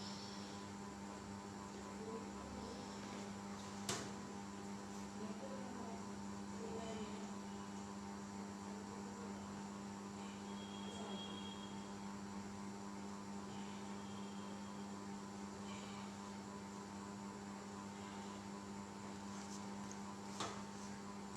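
Steady low electrical hum, with faint handling noise and two sharp clicks, one about four seconds in and one near the end.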